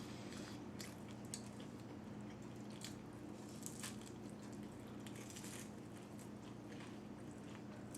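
Faint close-up chewing of food, with scattered small wet mouth clicks, over a steady low hum.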